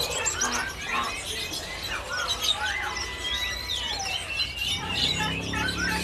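Many small caged birds chirping and twittering over one another in a dense, overlapping chorus, with one long steady whistled note in the middle.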